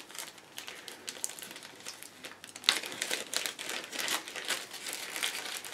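Clear plastic bag of small model-kit parts crinkling as it is handled and shaken, louder from about two and a half seconds in.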